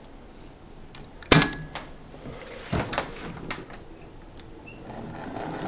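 Several sharp knocks and clicks, the loudest about a second and a half in and another near three seconds. Near the end the direct-drive motor of a 1955 Singer Model 201 sewing machine starts a steady hum.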